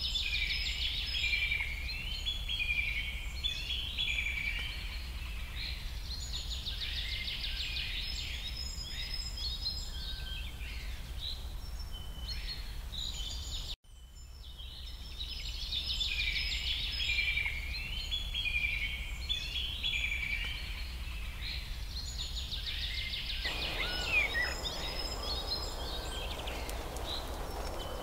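Songbirds chirping and trilling together over a steady low hum. After a brief dropout about halfway through, the same birdsong starts over, and a soft rushing hiss joins near the end.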